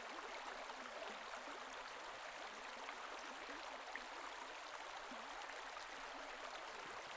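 Faint, steady rush of flowing water from the canal or river being fished.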